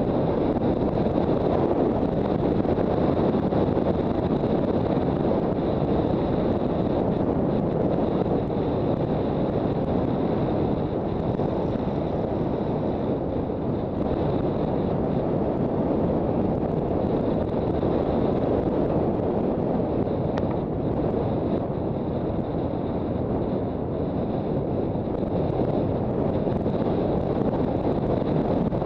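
Steady wind rush on the microphone of a Honda CB400 Super Bold'or riding at road speed, with the bike's running and road noise underneath and a faint steady high whine.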